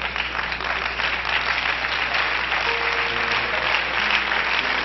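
Congregation applauding steadily, with a few held musical notes underneath.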